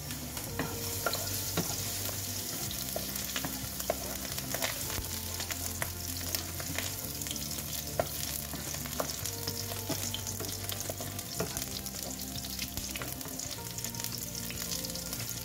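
Chopped garlic sizzling in hot oil in a nonstick wok, with a steady hiss throughout, stirred with a wooden spatula that scrapes and taps against the pan in many small clicks.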